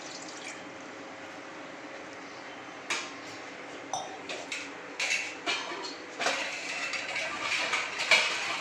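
Metal cookware clanking: separate knocks and clinks against a kadai begin about three seconds in, becoming a longer, busier clatter near the end.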